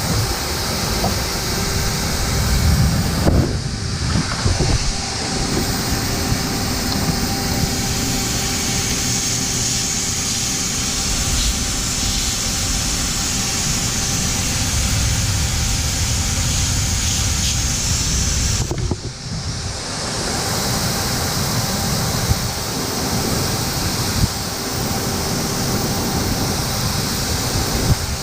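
Vacuum cleaner running in blower mode with a steady motor hum and rush of air, pushing air into a truck's cold exhaust system to find exhaust leaks. The sound dips briefly twice.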